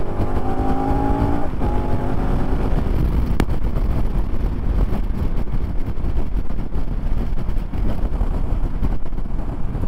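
KTM Super Adventure S V-twin motorcycle engine accelerating, its pitch rising twice with a short break between, an upshift. It then settles into a steady cruise under a continuous rush of wind, with one sharp click about three and a half seconds in.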